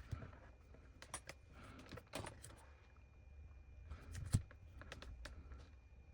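Faint, irregular light clicks and taps, a dozen or so spread over several seconds, with one sharper knock about four seconds in, over a faint steady high-pitched whine.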